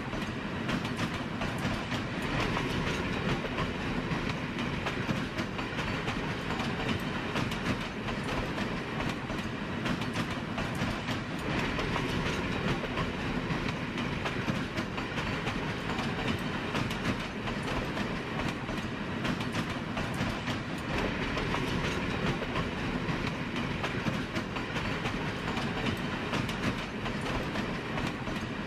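A train running along the track: a steady, even rumble with no breaks.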